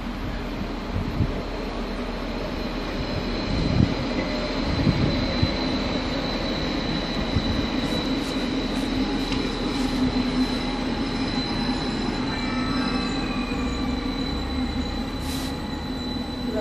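ODEG Stadler KISS double-deck electric train running slowly into the station, with a steady high squeal over a low electric hum. A few low thumps from the wheels come in the first five seconds.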